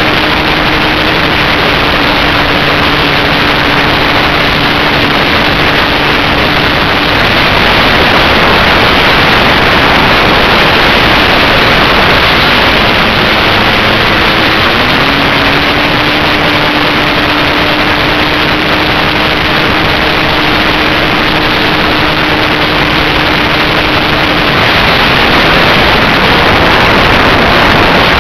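Loud rushing wind and motor-and-propeller noise heard from a small camera riding on a Zagi flying-wing RC plane in flight. A steady motor tone runs under the hiss, stops about seven seconds in, and comes back with a short rise in pitch about fifteen seconds in.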